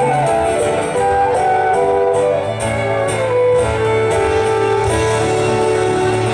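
Live Celtic band playing an instrumental tune, heard from the audience: a fiddle melody over guitar and drums, with a sustained low note underneath from about halfway through.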